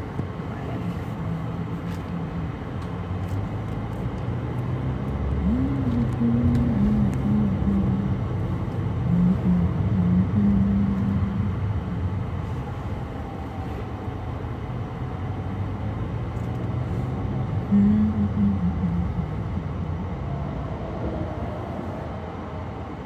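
Car cabin noise while driving in slow highway traffic: steady engine and tyre rumble, with a low engine hum that rises and falls in pitch and grows louder for a few seconds partway through.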